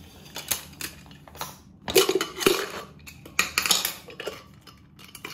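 Cookware clattering: a plastic sieve, a steel bowl and an aluminium pressure cooker being handled on a stone counter, giving several short knocks and clinks, the loudest about two seconds in.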